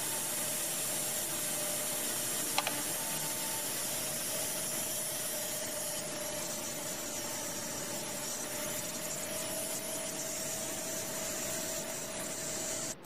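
Cookware-processing machine running on a stainless steel pot: a steady hissing whir with a faint steady hum under it, and one sharp click about two and a half seconds in.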